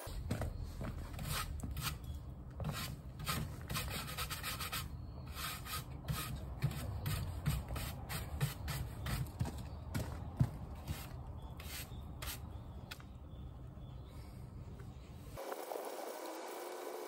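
Hand sanding of car grille bars with 400-grit sandpaper before primer surfacer: irregular quick rubbing strokes over a low rumble. The sanding stops suddenly about 15 seconds in.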